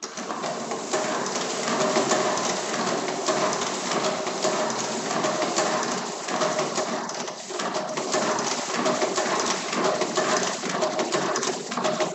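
Hand-cranked Rotafix 88 stencil duplicator (mimeograph) running. Its drum and feed mechanism make a dense, rapid clatter with a repeating rhythm, which stops abruptly at the end.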